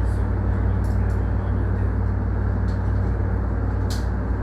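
Steady low hum inside a JR Yokosuka Line electric train car, with a few brief, light clicks, the sharpest near the end.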